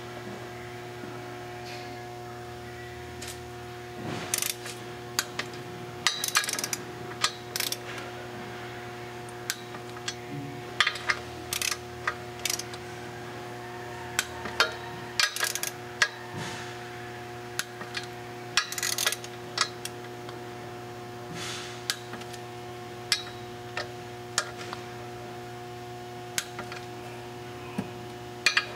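Torque wrench ratcheting and clicking in short bursts, over and over, as the clutch pressure-plate bolts are brought to their final torque of 30 lb-ft, with a steady hum underneath.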